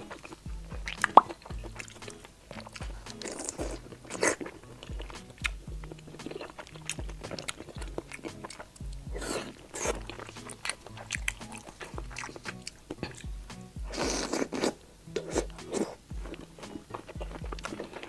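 Close-miked eating: a woman biting and chewing soft, broth-soaked oden pieces off skewers, with irregular wet mouth clicks and a few louder bites. Steady background music runs underneath.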